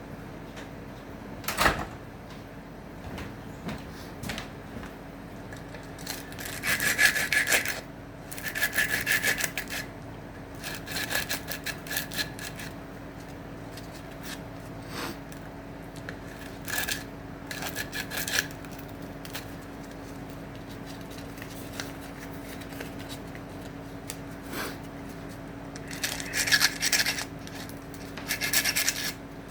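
Hand saw cutting acacia wood in several short bouts of quick strokes, with one sharp knock about two seconds in.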